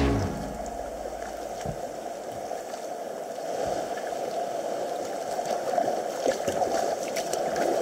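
Sea water lapping against a sea kayak's hull and small swell waves washing up a shingle beach, a steady wash of water that grows a little louder partway through.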